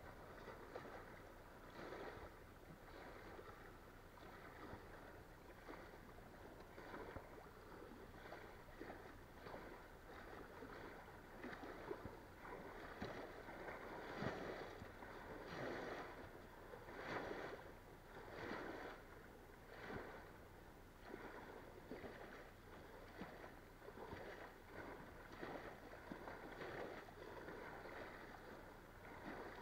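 Small waves lapping and washing against a stone-block embankment in irregular swells, a little louder for a few seconds around the middle.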